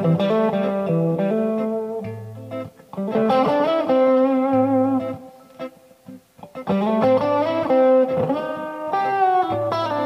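1982 Made-in-Japan Tokai Silver Star electric guitar played through an amplifier: melodic single-note lines and ringing notes, in phrases with short pauses about two and a half and six seconds in.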